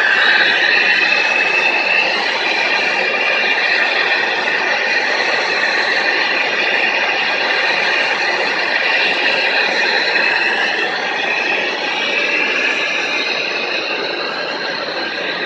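A machine running steadily, with a high whine that wavers slightly in pitch over a rushing noise.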